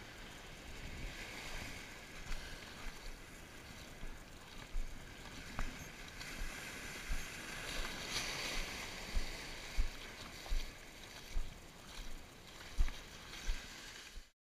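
Shallow ocean surf washing and swishing, with low thumps about once or twice a second; the sound cuts off suddenly just before the end.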